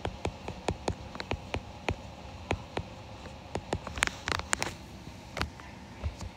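Stylus tapping and clicking on an iPad's glass screen during handwriting: a quick run of short, sharp clicks, several a second, with a louder cluster about four seconds in.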